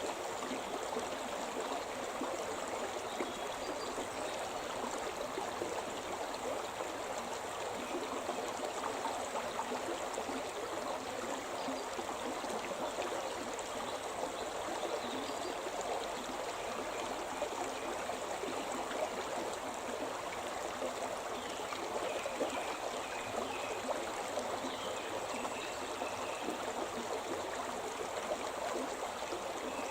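The Shimna River flowing steadily: a continuous, even rush of stream water.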